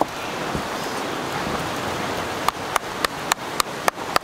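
Brush, twigs and rocks scraping and cracking as a black bear carcass is dragged uphill by hand: a steady rushing hiss, with a quick run of sharp snaps in the second half.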